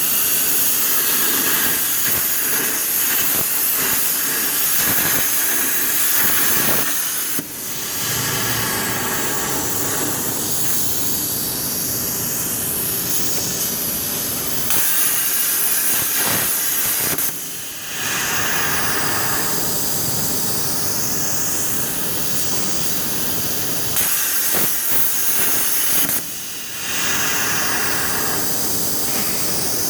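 CNC plasma cutting torch hissing steadily as its arc cuts a pattern through 4 mm steel plate. The hiss drops away briefly three times, about 7, 17 and 26 seconds in, then comes straight back.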